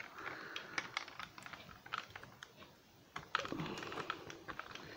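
Light, irregular clicks and scrapes of a small hand screwdriver working a stubborn screw in a metal bracket on a cardboard packaging insert, with the cardboard being handled.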